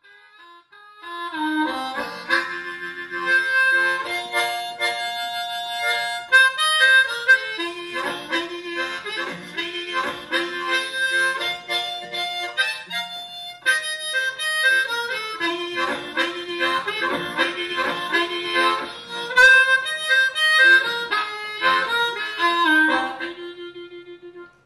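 Harmonica played solo, a run of chords and held notes, starting about a second in and tapering off near the end.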